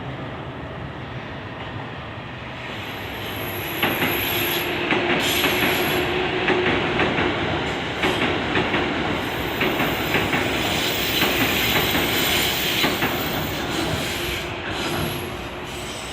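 A Keikyu 1500-series electric train passing close by. It builds up, runs loud for about ten seconds with wheels clacking over rail joints and a thin high squeal, then fades away near the end.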